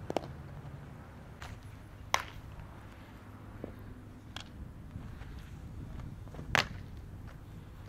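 Softball caught in a fielder's glove with a sharp smack about six and a half seconds in, the loudest sound here, as a throw from the outfield arrives at third base. A few fainter sharp smacks come earlier, over a steady outdoor background.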